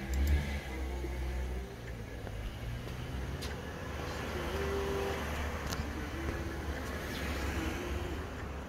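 A car drives past, its noise swelling to a peak in the middle and fading again, over a steady low rumble.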